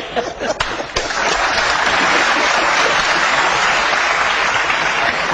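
Studio audience applauding, breaking in about a second in and holding steady, after a moment of laughter and talk.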